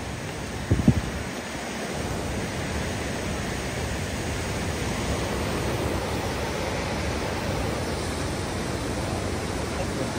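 Steady rushing of a swollen, muddy river in flood, with two brief low thumps about a second in.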